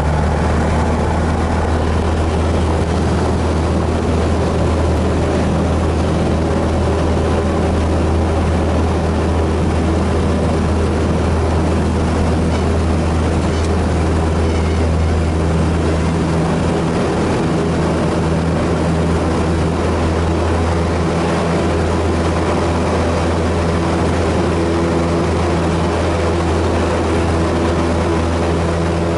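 Cessna 172's piston engine and propeller running at takeoff power, heard from inside the cockpit: a loud, steady drone.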